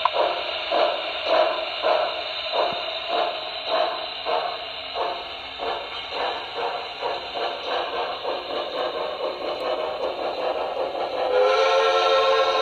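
Steam locomotive sound from the onboard sound system of a Broadway Limited Paragon 2 HO scale Pennsylvania Railroad 2-10-0 Decapod: a rhythm of exhaust chuffs that quickens from about two to about three a second. Near the end its steam whistle starts to blow.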